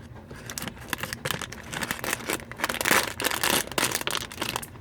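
Thin plastic blind-bag wrapper crinkling as it is handled and torn open, with a dense tear about three seconds in.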